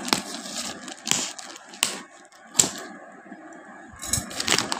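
Scissors snipping into a plastic courier mailer bag: a few sharp snips about a second apart, then plastic rustling and quicker clicks near the end.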